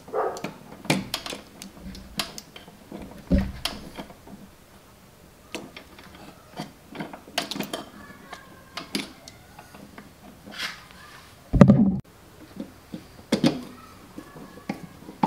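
Clicks, taps and scrapes of a screwdriver and a switch's metal mounting strap against a steel electrical box as the switch is pushed in and its screws are driven. A louder thump comes about three quarters of the way through.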